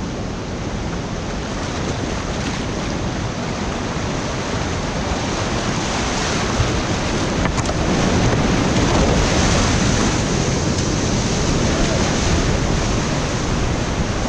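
Whitewater rapids rushing, heard up close on the river. The rushing grows louder through the first half and then holds steady.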